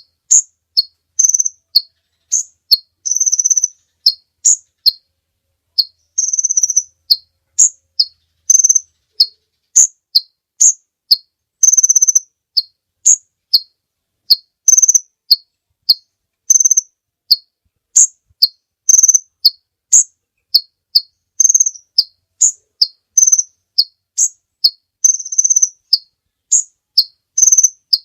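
A kolibri ninja sunbird singing a fast, unbroken run of high, sharp chips mixed with short buzzy trills, about two to three notes a second.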